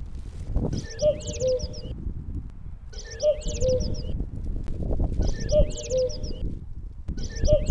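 Birdsong: a phrase of high, quickly falling chirps together with low cooing, repeated in almost the same form about every two seconds, over a steady low rumble.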